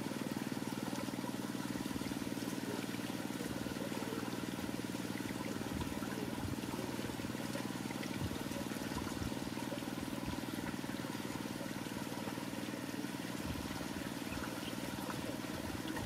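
Steady low rumble of outdoor background noise, even throughout with no distinct calls.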